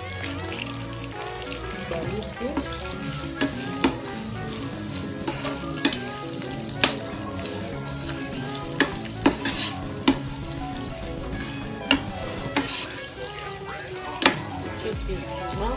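Small fish (ndakala) sizzling in hot oil in a frying pan, with a steady hiss. A metal spatula stirs them, knocking and scraping sharply against the pan about eight times.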